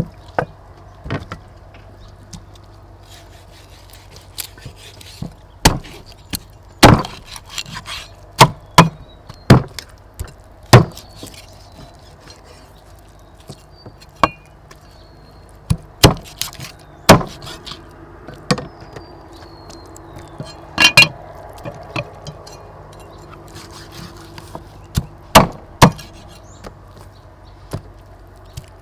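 Meat cleaver chopping raw bone-in chicken on a thick round wooden chopping block: sharp, irregularly spaced chops, some single and some in quick runs of two or three, with pauses between.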